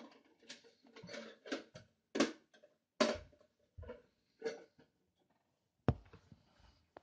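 Camera handling noise: irregular rustles and soft knocks, with one sharper knock about six seconds in.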